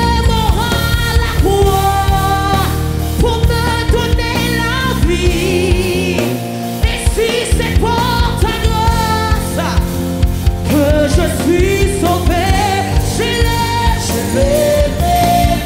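Gospel music: a lead singer holding and bending long notes, with backing vocals, over a band with steady drum hits and bass.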